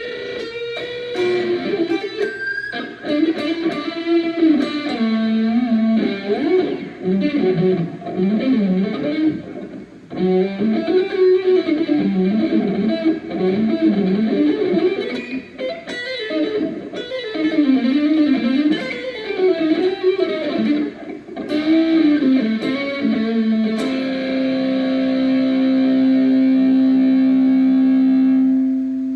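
Morris Hurricane electric guitar played through an amplifier: fast single-note lead runs up and down the neck, settling near the end into one long held note.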